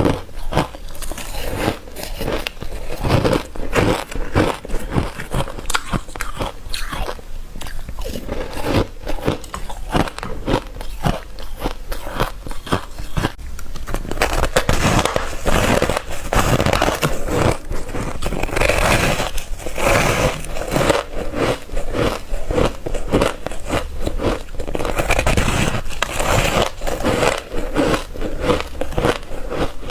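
Ice being bitten and crunched between the teeth close to the microphone: a dense, unbroken run of sharp crunches.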